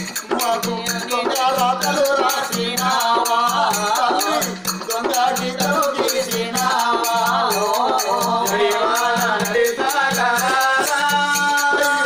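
Oggu Katha folk music: voices singing a wavering melody over a fast, continuous jingling of small metal percussion and a low drum beat that pulses steadily.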